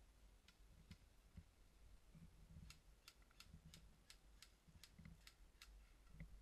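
Faint, sharp snaps of airsoft guns firing semi-auto some way off: two single shots in the first second, then a run of about ten shots a few tenths of a second apart from about three seconds in.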